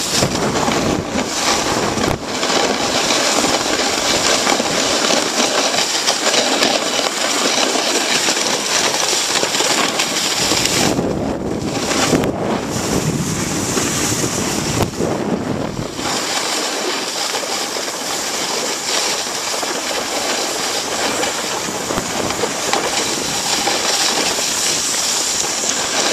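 Steady rushing noise of a snowboard sliding over snow, with wind on the microphone. The hiss eases off briefly twice midway.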